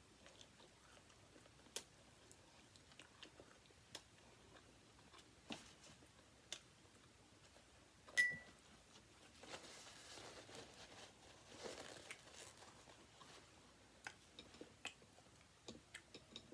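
Faint close-up chewing and crunching of food, with scattered small clicks and taps and one sharper click about eight seconds in.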